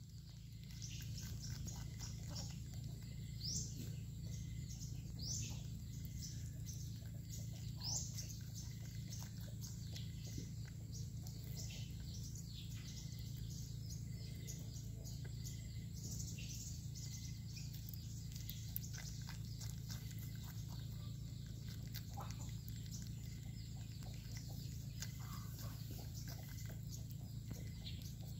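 Birds chirping now and then over a steady low hum, with scattered faint ticks.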